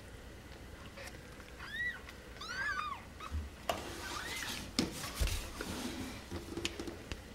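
Newborn kittens mewing: a few short, high-pitched squeaks that rise and fall, one about two seconds in, a quick cluster just after, and another about four seconds in. Rustling on the blankets with a couple of low bumps follows.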